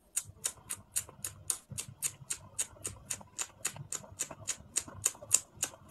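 Rapid, even ticking: sharp clicks at about five a second, like a clock or timer, with a faint low hum underneath.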